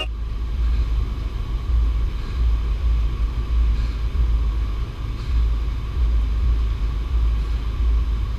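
A loud, low rumble that swells and dips unevenly, with no voices or music.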